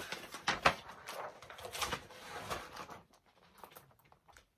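Paper rustling and sharp knocks as a large spiral-bound picture flip book is handled and its page turned, dying away about three seconds in.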